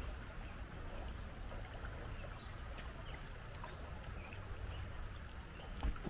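Shallow creek water running steadily over a rocky bed, a soft even rush, with one low thump near the end.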